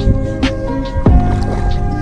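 Background music with held chords over a regular drum beat.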